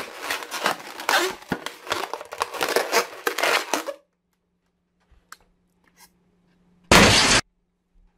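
Latex modelling balloons squeaking and rubbing under a hand for about four seconds. After a silent pause, one balloon bursts with a loud pop near the end.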